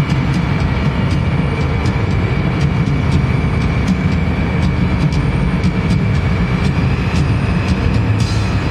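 Loud live arena concert sound recorded from the audience, overloaded and muddy: a dense low rumble of amplified bass with a thin steady high tone over it and scattered clicks, the music itself hard to make out.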